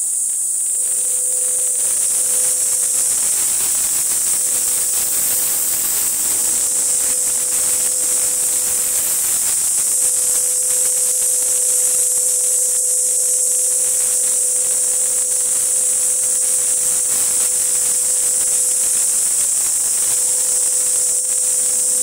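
Weidner single-disc rotary floor scrubber running steadily on a stone floor: a constant motor hum under a strong, even hiss.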